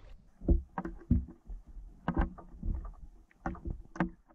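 Water slapping and knocking against a canoe hull, heard through an underwater camera: a string of irregular, muffled clunks and splashes.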